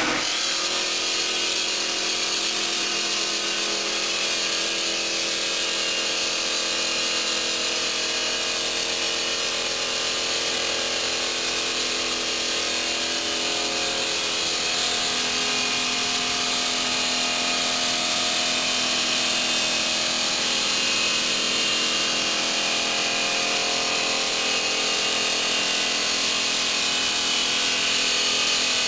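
HK-0104/B bridge saw's water-cooled circular blade cutting steadily through a stone slab, a continuous high-pitched grinding that holds an even level throughout.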